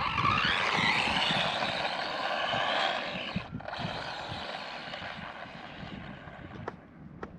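Arrma Mojave Grom BLX RC truck's brushless motor whining under throttle, rising in pitch over the first second, holding, cutting out briefly about three and a half seconds in, then fading away. A few faint clicks come near the end.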